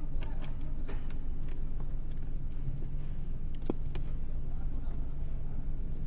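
Steady low hum of a car running, with scattered light clicks at irregular intervals.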